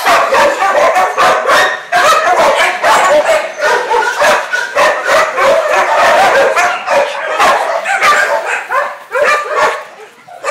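Many dogs in kennel runs barking and yipping at once, a loud, continuous chorus of overlapping barks that eases off a little near the end.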